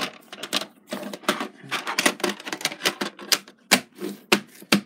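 Green hard-plastic VHS clamshell case and tape being handled, giving a quick, irregular run of plastic clicks and knocks.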